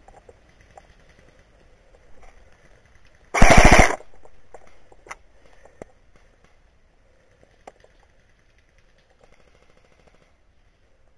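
An airsoft gun firing one short full-auto burst of rapid shots, about half a second long, a little over three seconds in. The rest is faint, with a few scattered small ticks.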